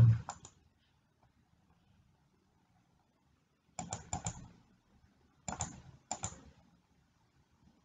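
Computer keyboard keys tapped in short clusters of sharp clicks: a couple just after the start, a quick run of about four roughly four seconds in, then two more short runs a second and two seconds later, with near silence between.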